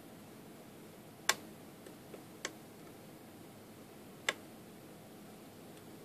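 Lockpick and tension wrench working the pins of a Lotus lock: three sharp metallic clicks a second or two apart, with a couple of fainter ticks between the first two.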